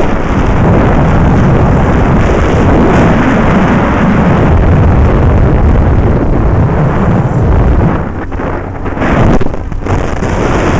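Wind rushing loudly over the microphone of a Mondial 100 cc motorcycle moving along a dirt track, with the bike's engine running underneath. The rush eases and flutters about eight seconds in.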